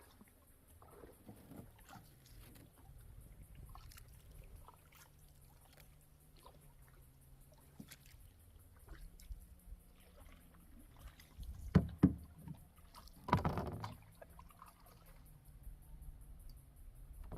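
Canoe paddling on calm water: paddles dipping and splashing, with two sharp knocks close together about twelve seconds in, then a louder splash.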